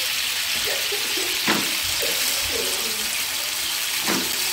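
Sauce of sautéed garlic and shallots with tomato and chili sauce sizzling steadily in a frying pan, stirred with a wooden spatula, with two short scrapes standing out, one about a second and a half in and one near the end.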